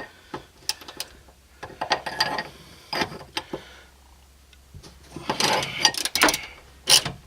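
Ratchet wrench clicking in short runs of quick clicks, with a denser run near the end, as a tight Torx bolt is worked loose.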